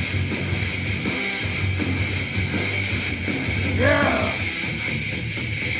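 Thrash metal music with electric guitars, played from a vinyl record. A man says a short "yeah" over it about four seconds in.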